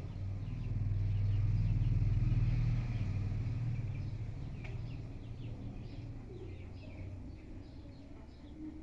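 A low rumble swells over the first second, holds for a couple of seconds and then slowly fades, with faint bird chirps.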